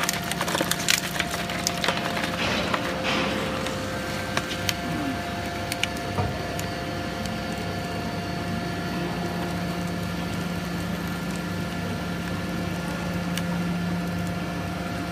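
Hydraulic baler pressing aluminium cans: a dense crackle and crunch of cans collapsing under the ram for the first few seconds, over the steady hum of the hydraulic pump. After that the hum carries on alone with a few single clicks.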